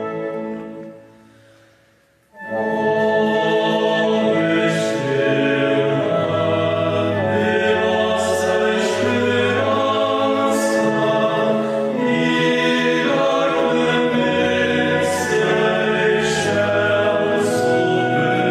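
Male choir singing a Portuguese Marian hymn with pipe organ accompaniment. The previous chord dies away almost to silence, and choir and organ come back in together about two seconds in.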